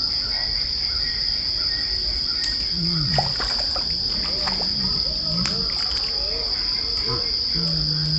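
Steady high-pitched insect drone over the water. A few sharp splashes and plops come in the middle as fish strike at the surface.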